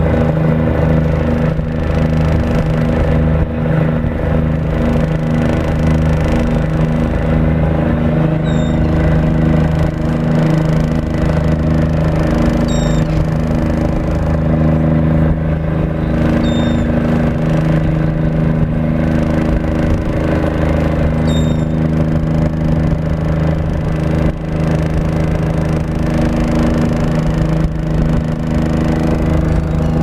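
Ship's engines running at a steady drone, a deep hum with a slight regular throb, heard from the open deck over the rush of wind and water.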